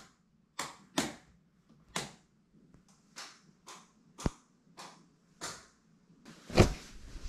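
Wall light switches being flicked on and off one after another: a series of sharp clicks, roughly two a second, while the lighting is tried out. A louder knock with rustling comes near the end.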